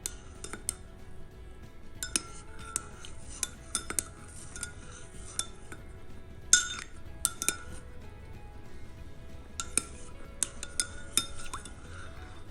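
Cutlery and crockery clinking while milk tea is made: a spoon tapping against cups, in irregular sharp clinks with a short ring, the loudest about six and a half seconds in. Soft background music underneath.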